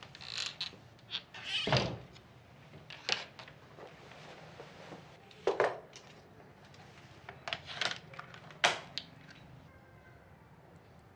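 Clothes and gear being handled at a wooden wardrobe and a camera tripod: a string of short knocks, clicks and rustles, about half a dozen sharp ones. The loudest come about two seconds in and near the end.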